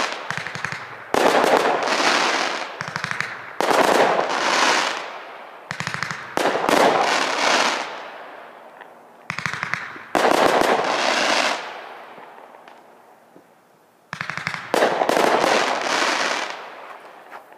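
Consumer fireworks cake going off in a series of loud bangs. Each bang is followed by dense crackling that fades over a second or two, with a longer pause before the last volley.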